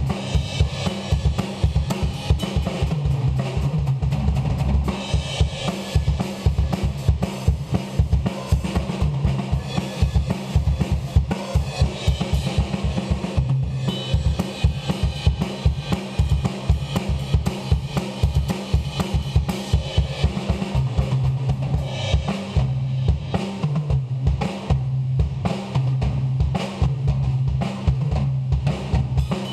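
Mapex drum kit with cymbals played steadily through a sound check: fast, busy strokes on bass drum, snare and toms under ringing cymbals.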